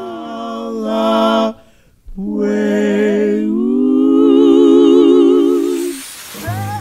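Vocal music: a singer holds long notes with vibrato. There is a brief break about two seconds in, then one long held note that fades near the end.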